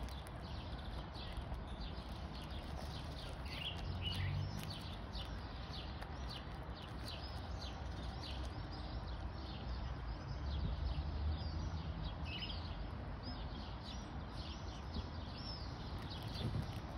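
A large dog chewing and mouthing a chocolate bar still in its wrapper. Birds chirp over it in quick, short calls a few times a second.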